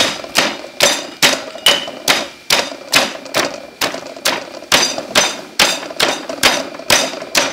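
A stone pestle pounding chillies and garlic in a heavy stone mortar, with steady, evenly spaced knocks about two and a half times a second.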